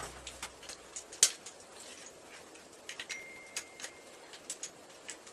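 Light, irregular clicks and ticks of a small hand tool and metal parts being handled on a motorcycle's front fork and top clamp, the sharpest about a second in. A faint thin steady tone lasts about a second midway.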